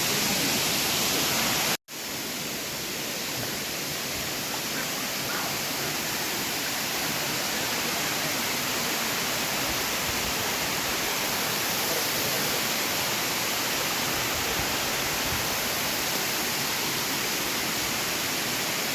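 Waterfall: a steady, even rush of falling water. About two seconds in the sound cuts out for an instant, then returns slightly quieter.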